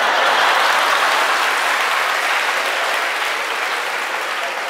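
Audience applauding, breaking out all at once and slowly dying down.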